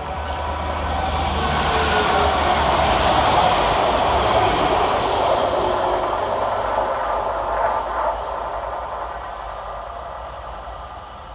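Electric multiple-unit passenger train running through the station without stopping: the noise of its wheels on the rails builds as it approaches, peaks as it passes, then fades as it runs away down the line.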